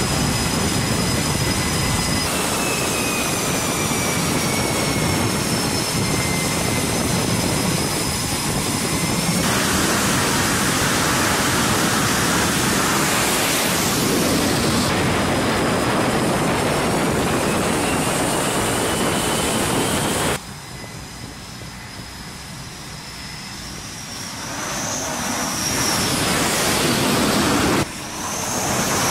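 F/A-18 Super Hornet jet engines running loud, a dense rush with thin high turbine whines that slide slowly in pitch. About two-thirds of the way in the sound drops suddenly to a quieter rush, then builds back up over a few seconds.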